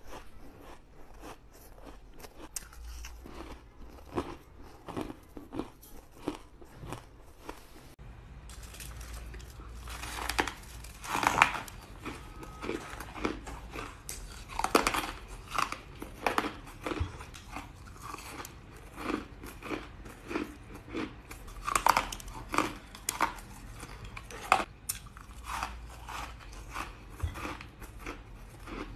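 Close-up crunching and chewing of crumbly white ice: a quick run of crisp bites, louder and denser from about eight seconds in.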